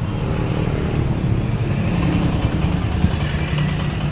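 Motor vehicle engine running, a steady low rumble with a short knock about three seconds in.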